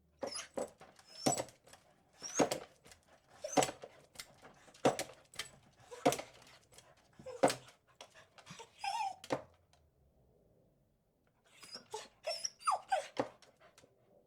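Beagle barking, about one bark a second for some nine seconds. After a pause of about two seconds comes a quicker run of shorter, higher barks.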